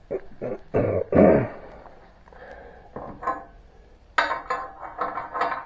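Hand tools and metal parts being handled on a workbench: a string of irregular clinks and knocks, with a louder one about a second in and a quick cluster near the end.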